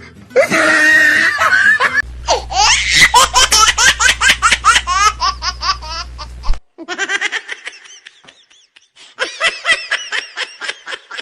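High-pitched laughing in rapid repeated bursts. It stops suddenly about six and a half seconds in, and a second run of laughing starts near the end.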